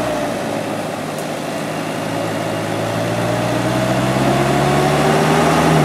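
Engine of a light truck stuck in mud, revving under load as it is pushed out: its pitch dips briefly, then climbs slowly and is highest near the end.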